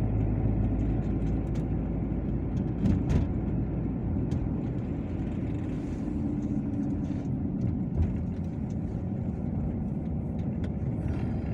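Car running along a wet road, heard from inside the cabin: a steady low hum of engine and tyre noise, with two brief knocks, about three seconds and eight seconds in.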